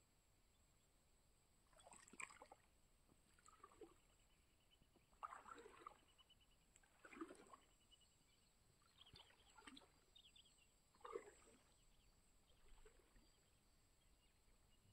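Faint, irregular splashes and sloshing of water, one every second or two, as a cast net is hauled in hand over hand through shallow water by a wading fisherman.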